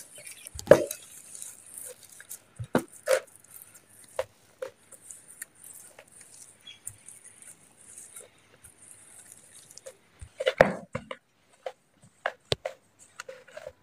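Metal potato masher working through boiled potatoes in a bowl: irregular soft taps, squishes and knocks of the masher against the potatoes and the bowl.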